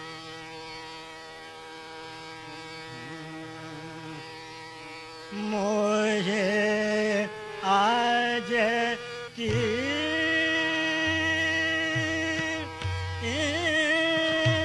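A steady, buzzing drone sounds alone at first. About five seconds in, a male voice enters singing a Hindustani classical vocal line, with held notes and ornamented glides. Partway through, a low sustained accompaniment tone joins.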